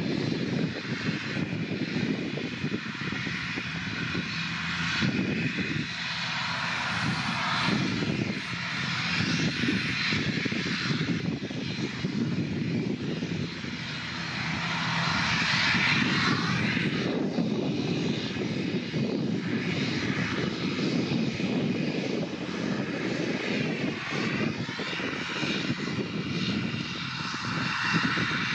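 ATR 72-600 turboprop's Pratt & Whitney PW127 engines running steadily as the airliner taxis, swelling louder in the middle and again near the end.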